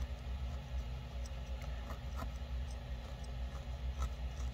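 Felting needle poking into a tiny ball of wool: faint, irregular little ticks, roughly two a second, over a low steady hum.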